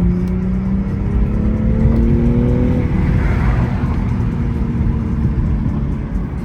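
Stock 2021 BMW M340i's turbocharged 3.0-litre straight-six under acceleration, its pitch rising steadily for about three seconds, then settling into a steady low rumble.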